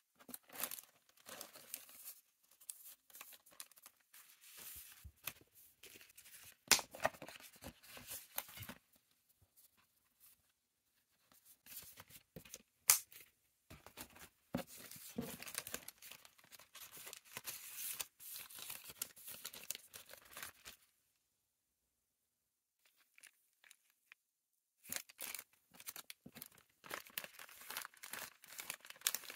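Plastic packaging and bubble wrap crinkling and rustling as they are handled and packed, in irregular bursts with a couple of sharp cracks. The sound drops out to dead silence for a few seconds past the middle, then resumes.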